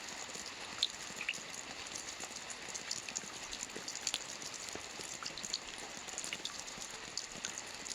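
Gentle rain falling steadily: an even hiss with many scattered drops ticking sharply on a surface.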